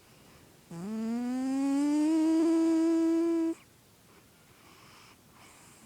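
A sleeping cat snoring: about a second in, one long snore with a clear humming pitch that rises and then holds for nearly three seconds before cutting off. The snoring is harmless; the vet has found the cat healthy.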